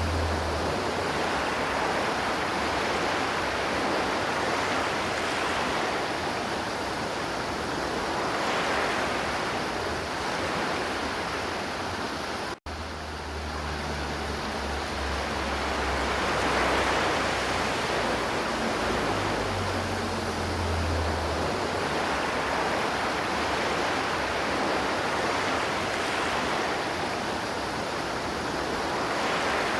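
River water flowing in a steady, continuous rush. The sound drops out for a split second a little under halfway through, then carries on as before.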